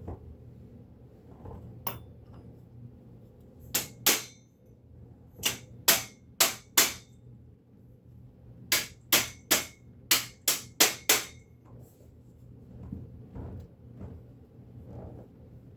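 End caps being tapped into the tube ends of a miter saw stand: sharp knocks in groups, one, then two, then four in quick succession, then a run of seven.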